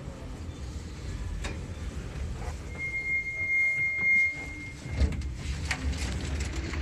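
Doors of an 81-717.5M metro car opening at the platform: a thin, steady high whine for about two seconds, then a sharp thud about five seconds in as the pneumatic doors release, with a few clicks after, over the standing car's low rumble.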